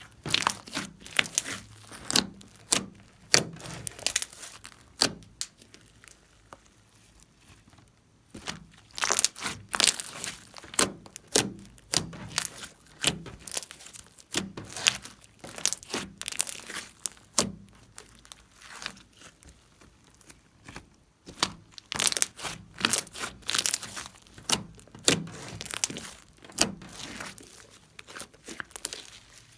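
Slime being kneaded, stretched and pressed by hand: clusters of sticky crackles and pops, in three bouts with short pauses between.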